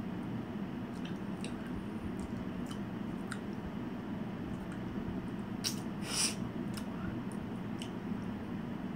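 Quiet room tone with a steady low hum, broken by a few faint clicks and one short hiss-like noise about six seconds in.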